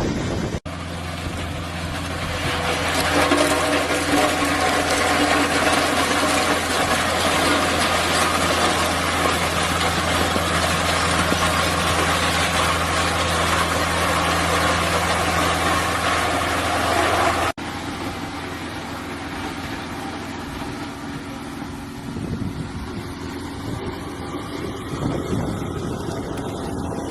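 Road roller's engine running steadily with a low hum under a broad rough noise that is louder for most of the first two-thirds, with abrupt cuts about half a second in and again around two-thirds of the way through.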